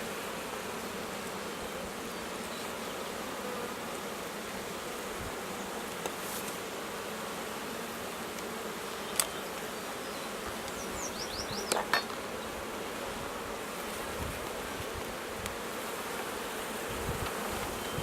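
A hive full of honey bees buzzing steadily, with a couple of sharp knocks about nine and twelve seconds in.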